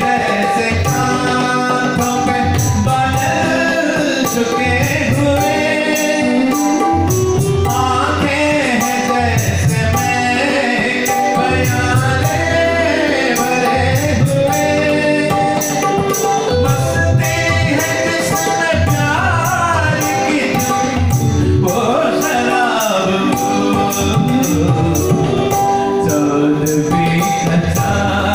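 A man singing a song into a microphone through a PA, over backing music with a steady beat.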